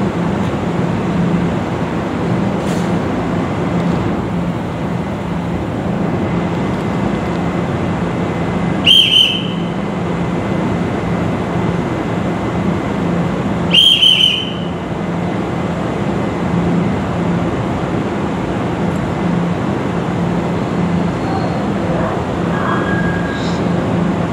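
Two short, shrill whistle blasts about five seconds apart, each under a second, over a steady rumbling hum of a railway platform.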